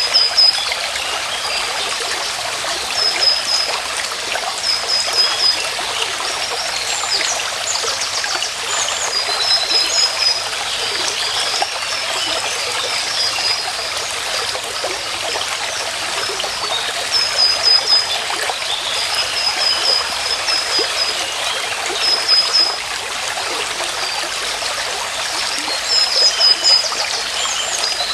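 A small stream trickling and running steadily. Over it come short, high chirps repeated in quick runs of a few notes, every second or few seconds.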